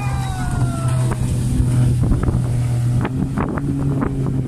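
Jet ski engine whine falling in pitch as it speeds past over the first two seconds, over a steady low boat-engine drone, with wind buffeting the microphone.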